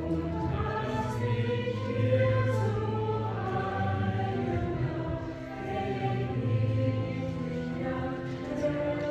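Church choir singing a hymn over sustained low organ notes.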